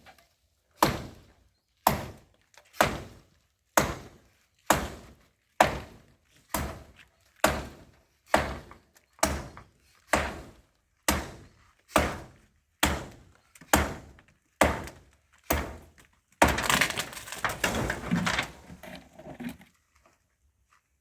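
Steady, evenly paced hammer blows, about one a second and seventeen in all, knocking apart a pit latrine structure. About sixteen seconds in they give way to a three-second clattering crash of the structure breaking and falling.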